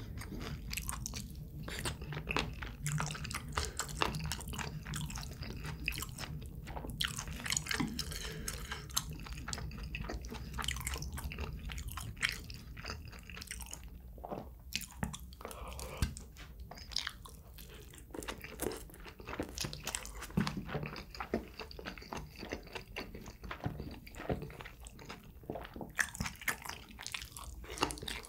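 A person chewing and biting food close to the microphone, with many small irregular wet clicks and crunches.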